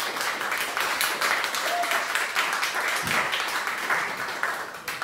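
Audience applauding: many people clapping at once in a dense, steady patter.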